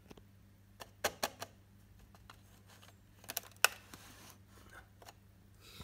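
A few short, sharp clicks and light knocks from handling, in two clusters about a second in and just past three seconds, over a steady low electrical hum.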